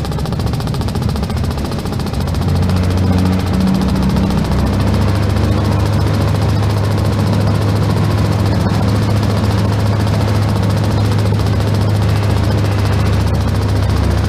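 Powermatic Model 87 20-inch vertical metal-cutting band saw running with no cut in low range, its 2 hp three-phase motor and variable-speed drive giving a steady hum. The hum grows louder about two seconds in as the speed dial is turned, then holds steady.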